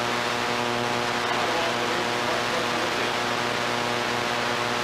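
Steady hiss with an electrical hum of evenly spaced steady tones: the noise floor of an old 1990 videotape recording, with no clear court sounds standing out above it.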